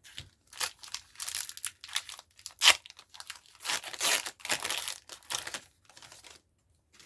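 Foil booster-pack wrapper of Pokémon trading cards crinkling and tearing in a run of irregular rustles and rips, with one sharper crackle a little before the middle.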